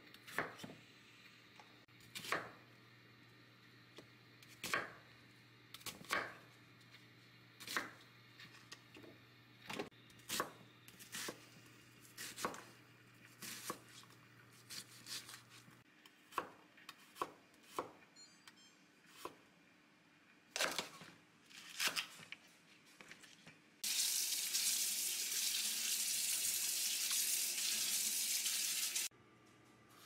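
Santoku knife cutting potatoes, then garlic cloves, on a wooden cutting board: single sharp chops about every second and a half, coming quicker in the second half. Near the end a loud, steady rushing noise runs for about five seconds and cuts off suddenly.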